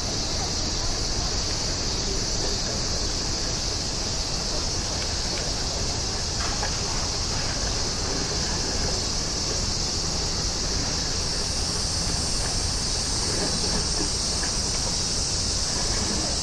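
Steady, even roar of a departing Airbus A350-900's Rolls-Royce Trent XWB jet engines as it climbs away, with a constant high-pitched hiss over it.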